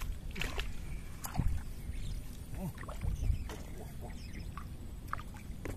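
A hooked fish thrashing at the water's surface on a fishing line, making a run of short separate splashes, the loudest about one and a half seconds and three seconds in.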